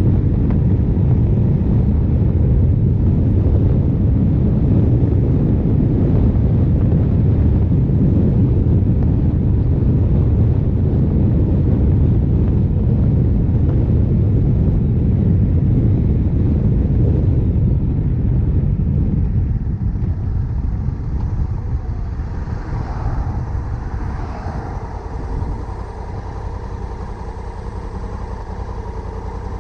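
Honda CRF1100L Africa Twin's 1084 cc parallel-twin engine running at cruising speed under heavy wind noise on the microphone. About two-thirds of the way through, the wind dies down as the bike slows, leaving a quieter, lower engine note.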